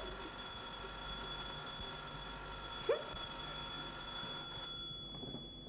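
Telephone bell ringing in one continuous, steady ring that fades out about five seconds in, with a short rising squeak about three seconds in.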